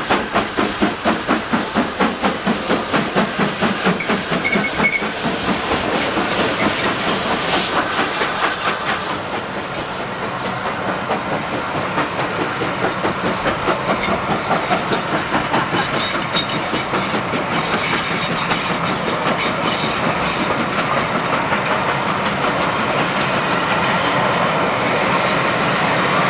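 BR Standard Class 7 'Britannia' two-cylinder Pacific steam locomotive working hard past, with a strong, even exhaust beat of about two to three chuffs a second. The beat fades after about five seconds as its train of carriages rolls past, wheels clicking over the rail joints.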